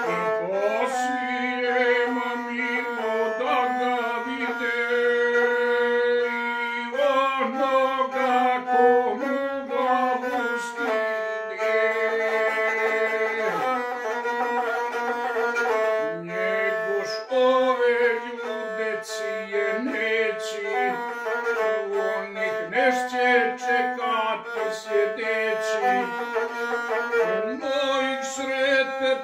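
Gusle, the single-string bowed Balkan fiddle, played solo between sung verses: a melody of held notes broken by quick ornaments and slides.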